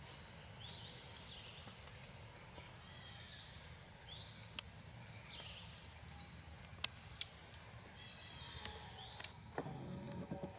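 Faint forest ambience: a bird calls over and over, a short high sweeping note about once every second or so, over a low steady rumble. There are a few sharp clicks in the middle, and a brief low thump near the end.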